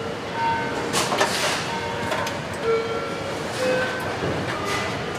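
Car assembly plant din: a steady machinery rumble with short beeps at several different pitches scattered through it and a brief hiss about a second in.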